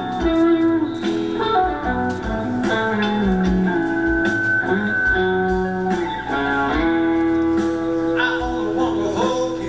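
Music: a guitar-led tune with held notes over repeated low drum hits.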